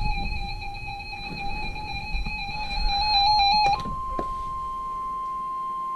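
Weather radio alert tones: a buzzy, slightly warbling alarm tone, then about four seconds in a clean, steady single tone, the 1050 Hz Warning Alarm Tone that comes before a new warning is read.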